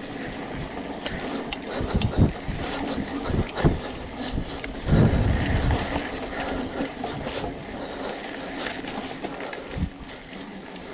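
Wind buffeting the microphone and tyres rolling on a dirt trail as a BMC Twostroke AL hardtail mountain bike is ridden, with short rattles and several thumps over bumps, the loudest about five seconds in.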